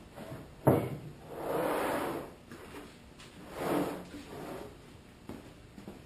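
Heavy wooden boards knocking and sliding against each other as one is pulled from a lumber pile. There is a sharp knock about a second in, then two longer scraping slides.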